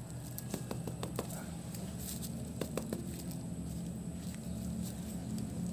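Gloved hands handling and pulling apart a cardboard firecracker tube: a few light clicks and taps in two small clusters, over a steady low background rumble.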